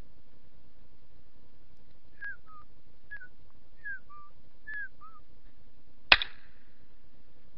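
A single shotgun shot about six seconds in, with a brief echo after it. Before it come four short pairs of whistled notes, each a falling note followed by a lower one.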